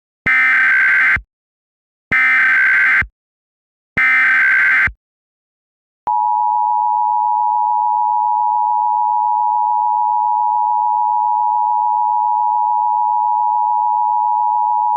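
Emergency Alert System SAME header: three short bursts of digital data tones, about a second each and evenly spaced. About six seconds in, a steady attention tone just below 1 kHz starts and holds.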